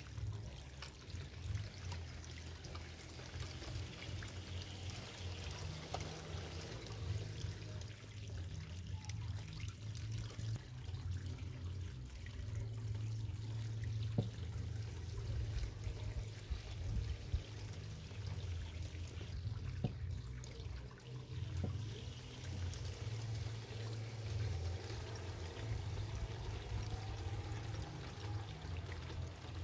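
Water trickling and pouring steadily into a garden fish pond, over a low, uneven rumble.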